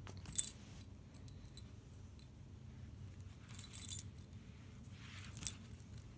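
Dog's collar tags jingling in three short bursts as the dog moves. The first, about half a second in, is the loudest.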